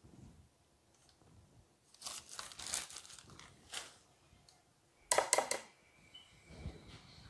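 Plastic bag of powdered sugar crinkling as it is handled and set aside, with a quick cluster of sharp knocks about five seconds in.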